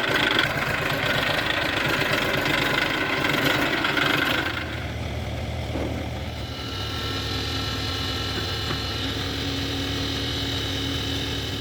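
Diesel engine running steadily. It is louder and rougher for the first few seconds, then settles into a steadier, lower run with a faint whine.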